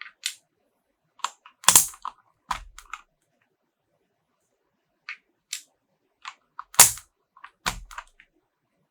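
Mechanical keyboard with silver linear switches being typed on in two short bursts of separate keystrokes with a pause between them. A few of the keystrokes are louder, deeper clacks.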